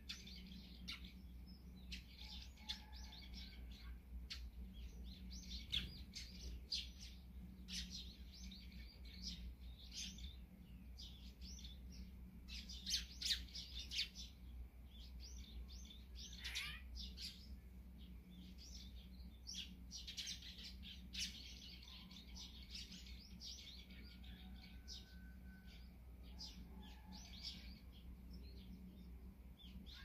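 Small songbirds chirping and twittering in quick, overlapping short calls, with a louder cluster of calls near the middle and a single call sweeping downward in pitch a little after it.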